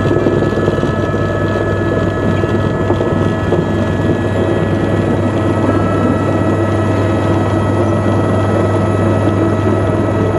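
Helicopter turbine engine and rotor heard from inside the cabin, running steadily with a constant high whine over a low hum, as the helicopter comes in to land.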